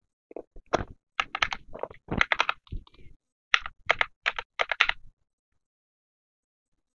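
Keys of a pink Azio desktop calculator being pressed in a quick run of sharp clicks as a number is entered; the clicking stops about five seconds in.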